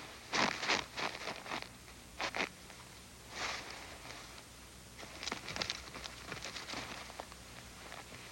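Footsteps crunching in dry, packed snow: short crisp crunches in irregular clusters, busiest near the start and again in the second half.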